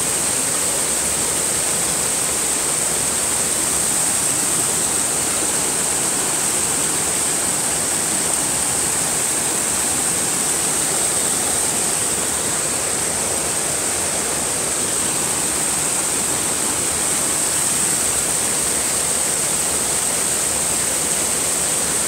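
Stream water rushing and splashing over a chain of small cascades between boulders, a steady, unbroken rush. A steady high-pitched hiss runs above it.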